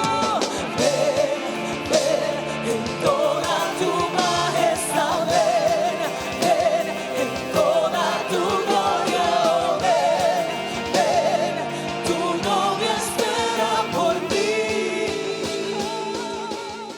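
Live worship band playing with wordless, vibrato-laden singing over drums and keyboards; the music fades out near the end.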